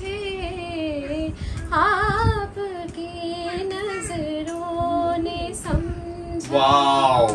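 A woman singing a slow song in long held notes with a gentle waver, with no instruments. The singing grows louder near the end.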